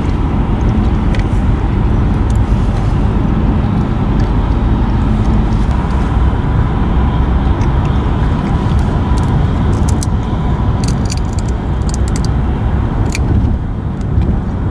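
Road and engine noise heard inside a moving car: a steady low rumble.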